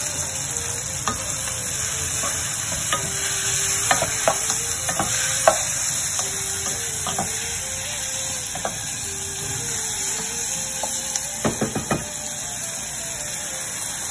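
Sliced bell peppers and onions sizzling steadily as they fry in a saucepan on a gas hob, with a stirring utensil scraping and tapping against the pan, several taps close together near the end.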